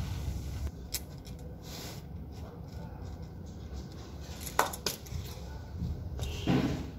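Cut coconut pieces clattering and clinking against each other as they are spread out by hand on a sheet to dry in the sun. There is a sharp click about a second in, a pair of clacks past the middle and a louder rattle near the end.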